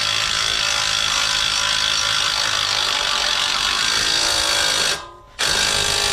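A power tool running steadily on the brake hardware, stopping briefly about five seconds in, then running again for about a second before cutting off.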